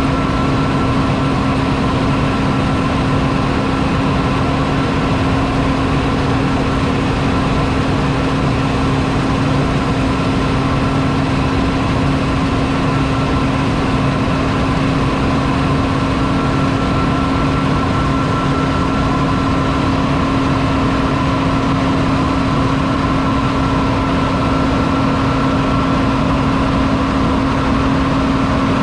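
John Deere 9780i CTS combine harvester's 8.1-litre six-cylinder diesel running at a steady speed, with a constant hum and a high whine that don't change.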